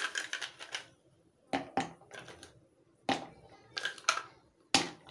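Ice cubes dropped one by one into a plastic blender jar of milk, about six separate clunks at uneven spacing.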